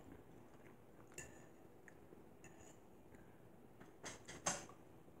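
Quiet table sounds of someone eating: a few faint short clicks of a metal fork against a plate about a second in and again around four seconds, with soft chewing.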